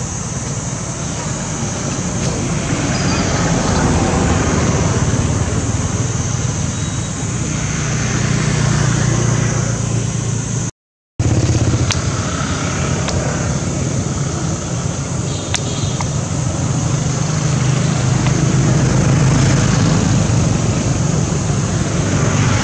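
Motor vehicle engines running steadily, swelling and fading a few times, over a steady high hiss. The sound drops out completely for a moment about halfway through.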